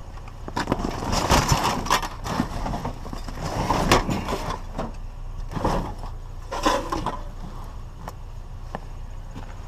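Rustling and clattering as a pile of Cat 5 network cable and scrap is handled and gathered up, with several sharp knocks, the loudest about four seconds in.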